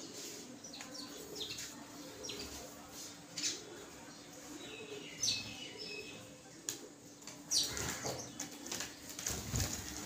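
Small birds chirping in short, high calls, with wings flapping as a bird flies in and lands near the end.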